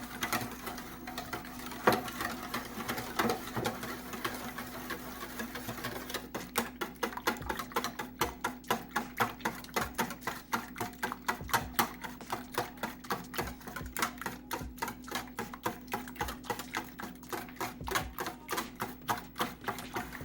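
Wire whisk beating egg batter in a bowl, clicking against the bowl. The strokes are scattered for the first few seconds, then fall into a steady rhythm of about three a second from about six seconds in.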